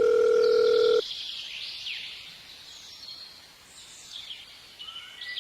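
A steady electronic beep tone that cuts off suddenly about a second in, followed by a faint hiss with soft high chirping glides.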